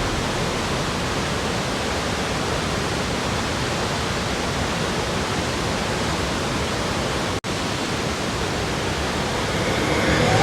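Waterfall: a steady, even rush of falling water, broken by a momentary dropout about seven seconds in and growing louder near the end.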